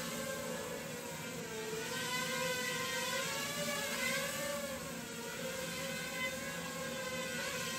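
Sharper Image DX-2 stunt quadcopter's small motors and propellers whirring in flight, the pitch wavering up and down as the throttle changes.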